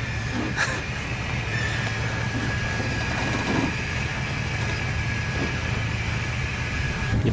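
Hummer H2's V8 engine running in a steady low drone as the truck crawls up a steep, rutted dirt slope, with a steady high whine over it that stops near the end. There is a short click about half a second in.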